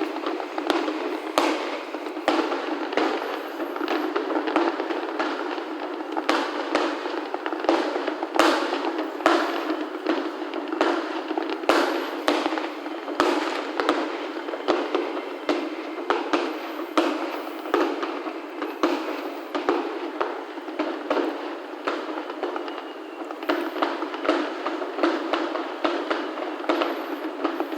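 Aerial fireworks finale: shell bursts going off in quick, irregular succession, many bangs a second over a continuous crackle, with little low-end boom.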